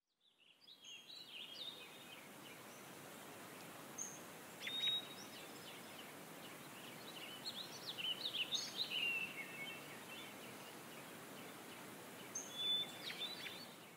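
Birds chirping and trilling in short clusters every few seconds over a steady hiss of outdoor ambience, which fades in at the start and fades out at the end.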